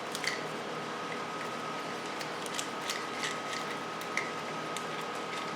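Scattered light clicks and taps of small parts and hand tools being handled, over a steady background hum with a faint high whine.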